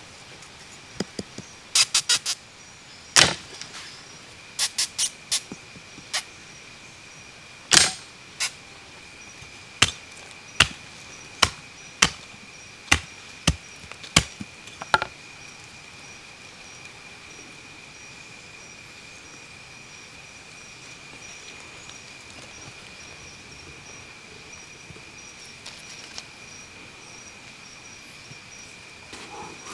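Sharp knocks, as of something hard being struck. They come first in quick clusters, then settle to a steady beat of about one every three-quarters of a second, and stop about halfway through. A steady high-pitched whine runs underneath throughout.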